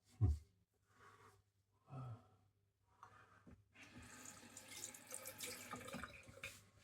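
Tap water running into a sink for a couple of seconds, starting about four seconds in, after a low knock near the start.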